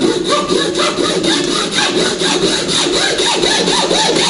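Hand saw cutting a kerf lengthwise into the end of a hardwood axe handle, in quick, even back-and-forth strokes. This is the slot that will take the wedge that spreads the handle tight in the hatchet head's eye.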